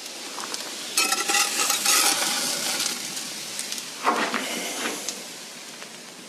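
Metal cookware scraping and clattering in two bursts, a longer one about a second in and a shorter one about four seconds in, with some metallic ringing.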